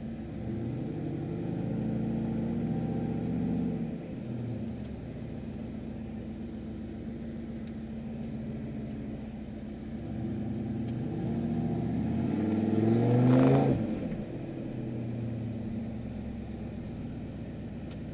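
Turbocharged Chevrolet Silverado's engine and lightning-style double-exit exhaust, heard from inside the cab. It speeds up briefly, eases back to a steady cruise, then pulls harder about ten seconds in, rising in pitch to a loud peak with a short rush of noise before dropping off sharply.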